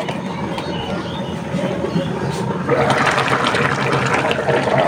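Thick tomato-based shing fish curry bubbling as it simmers in a frying pan, nearly done. The bubbling gets louder about three seconds in.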